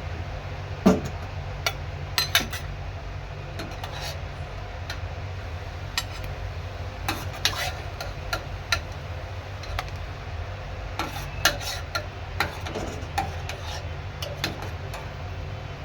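Kitchen utensils clinking and knocking against a pot or bowl in irregular light taps, with a few louder knocks, over a steady low hum.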